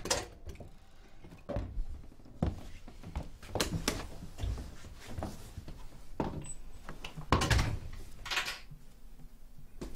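An apartment front door opening and people coming in: a series of knocks and thuds with footsteps on a wooden floor and some rustling.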